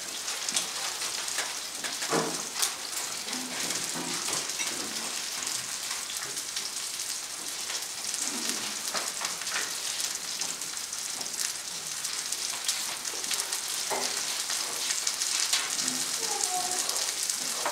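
Steak pan-searing in a skillet, a steady sizzle.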